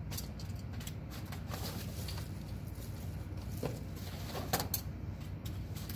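Scattered light clicks and rustles of paper stick puppets and props being handled, over a steady low room hum.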